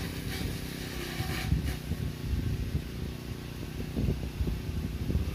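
An engine running steadily in the background, with gusty low rumbles of wind on the microphone.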